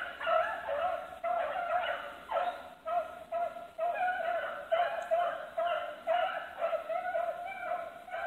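A pack of rabbit hounds baying as they run a rabbit's track, several dogs' voices overlapping in a steady string of calls coming about twice a second.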